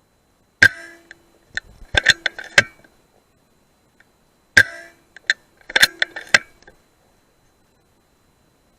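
Two quiet rifle shots about four seconds apart. Each is followed within a second or two by a quick run of sharp clicks and knocks.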